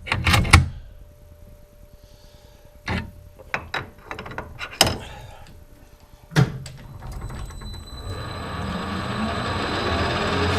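A few sharp metal clanks and knocks in the first seven seconds, then the metal lathe starts up and runs with a steady noise whose pitch slowly rises.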